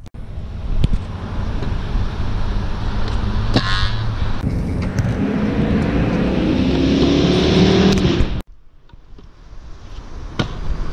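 Pro scooter wheels rolling over rough concrete: a steady rumble, with a hum under it that rises in pitch. It cuts off suddenly about eight seconds in and builds up again near the end.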